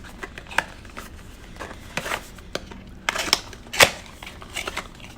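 Packaging being handled as accessories are taken out of a camera box: short rustles of cardboard and plastic with scattered sharp clicks and taps, the loudest just before four seconds in.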